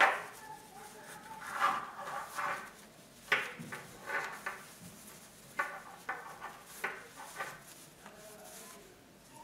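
Cloth rustling and rubbing in a string of short bursts as a denim sashiko patchwork panel is pushed and smoothed into a quilted cotton placemat.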